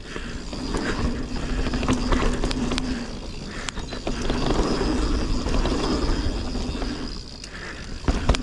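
Mountain bike riding a dirt singletrack: knobby tyres rumbling over the trail, with wind buffeting the microphone. The bike rattles and knocks over bumps, with a sharp double knock near the end.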